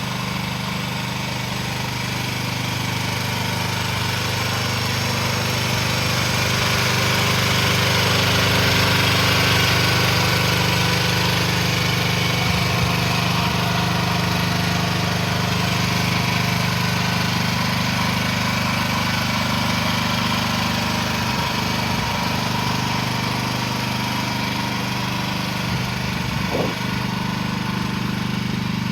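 Small engine of an AGT QH13R 1-ton mini excavator running steadily at a level pitch, slightly louder for a few seconds near the start, with a couple of brief clicks near the end.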